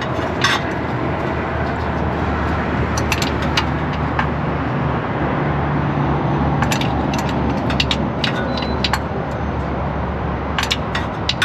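A vehicle engine running steadily, with scattered light clicks and taps over it.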